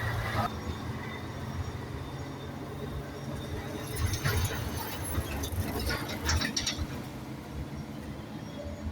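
Hand tools clicking and scraping against metal engine parts, in a cluster of short clinks about four to seven seconds in, over a steady low hum.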